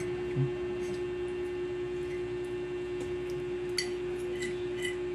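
A steady hum runs throughout, with a soft knock about half a second in and a few light clinks of metal forks against ceramic plates near the end.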